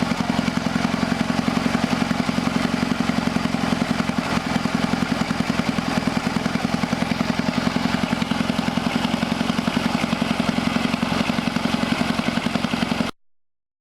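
Sawmill engine running steadily with a rapid, even pulse. It stops abruptly near the end.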